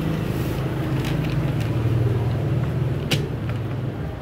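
A steady low mechanical hum, like an engine or motor running, with a few light clicks and one sharper click about three seconds in.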